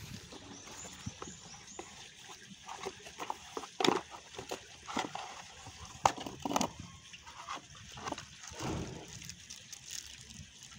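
Cardboard box and plastic packaging being handled: irregular rustling and crinkling with sharp knocks and scrapes, the loudest about four and six seconds in.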